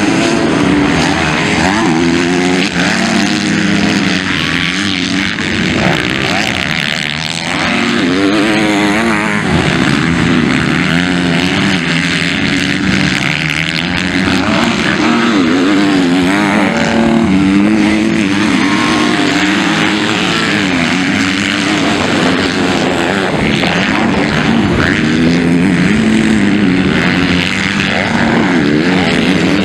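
MX2 motocross bikes racing on a dirt track, engines revving up and dropping back again and again as the riders go through the jumps and turns. Several engines overlap, their pitch rising and falling.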